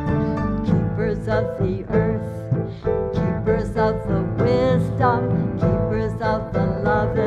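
Live band music: piano, bass, electric guitar and drums, with a woman's wordless singing over it in quick, changing notes.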